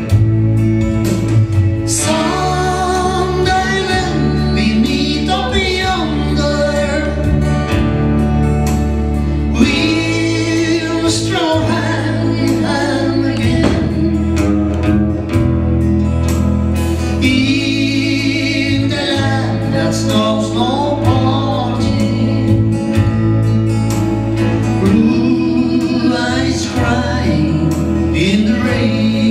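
A song performed live: a woman singing into a microphone over strummed acoustic guitar and a steady bass accompaniment. The voice comes in about two seconds in.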